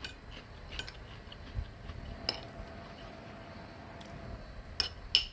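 A metal spoon clinking against a plate of rice, about five sharp clinks spread out. One clink a little over two seconds in leaves a faint ringing tone.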